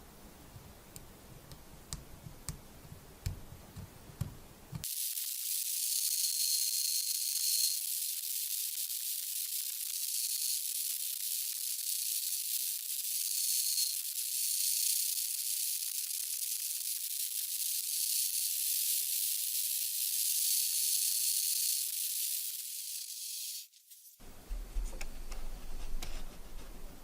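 A steady spraying hiss, like an aerosol or air spray, starts about five seconds in and runs without a break until it cuts off near the end, after a few faint clicks at the start.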